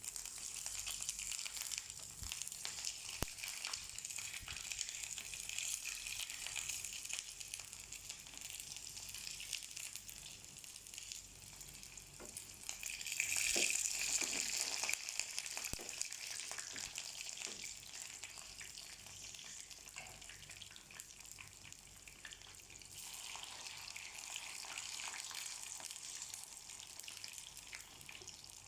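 Chicken nuggets frying in hot oil in a pan: a steady sizzle with fine crackling that swells louder for a couple of seconds about halfway through.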